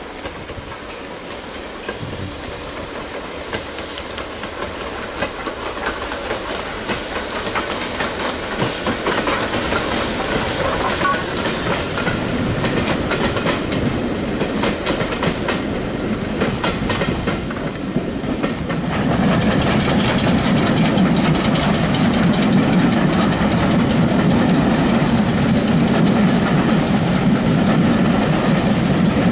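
A steam locomotive hauling passenger coaches passes, with its steam hiss and the coaches' wheels clattering over the rail joints, growing louder as it nears. About two-thirds of the way through, the sound changes abruptly to a louder, steady low rumble of a train passing close by.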